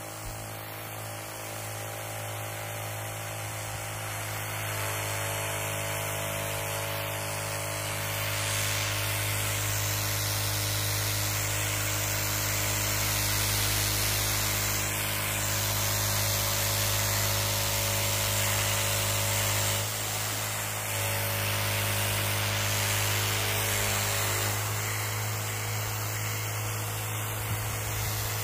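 Parkside PRDSP 20-Li A1 cordless backpack sprayer's electric pump humming steadily under the hiss of water spraying from the nozzle. The hum briefly dips about twenty seconds in.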